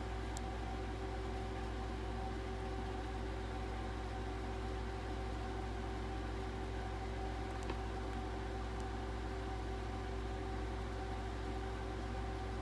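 Steady low hum with a fainter steady higher whine over a light hiss, and a few faint clicks.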